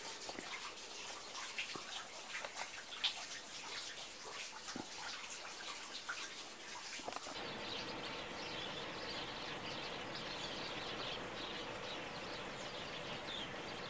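Outdoor ambience with small birds chirping. About seven seconds in, a steadier hiss with a faint steady hum sets in under the chirps.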